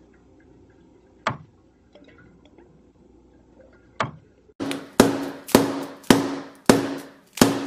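Hammer strikes: two light, single taps about a second in and again about four seconds in, then a run of loud, sharp blows, roughly two a second, each with a brief ringing tone.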